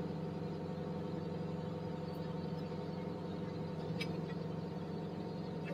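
Tracked excavator's diesel engine running at a steady hum with its hydraulics working as the upper structure slews right, with a faint click about four seconds in.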